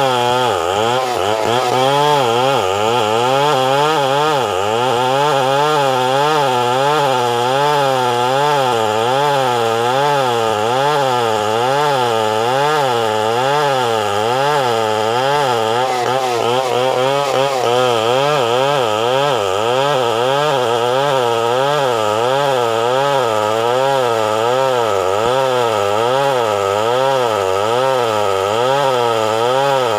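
Two-stroke chainsaw running continuously under load while cutting wood, its engine pitch wavering up and down in a steady rhythm.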